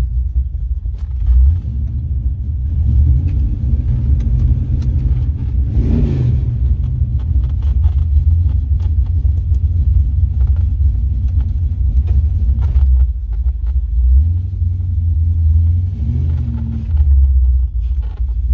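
Chevrolet 350 (5.7 L) small-block V8 of a 1986 C10 pickup running with a steady low rumble, fresh oil in after an oil and filter change, with a brief surge in engine sound about six seconds in.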